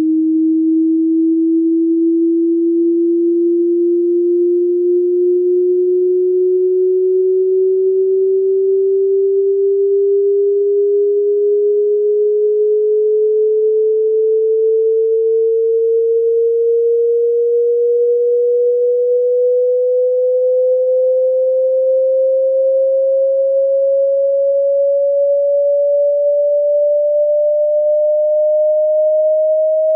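Hearing-test tone: a single pure sine tone sweeping slowly and evenly upward in pitch, rising by about an octave at a constant level.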